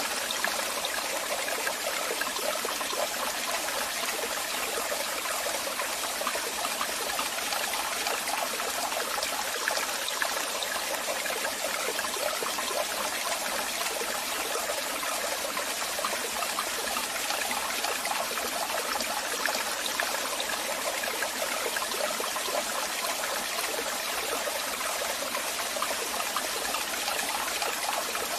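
Waterfall: water falling and splashing in a steady, unbroken rush that is mostly hiss, with little deep rumble.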